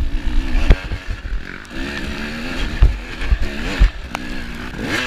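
Dirt bike engine revving up and down over and over, with several low thumps mixed in.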